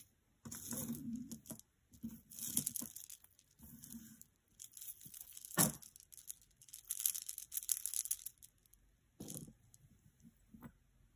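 Handling noise: a silver-tone chain necklace with red charms being picked up, shuffled and laid out on a cloth-covered table, with intermittent rustling and light chain clinks, and one sharp click a little over halfway through.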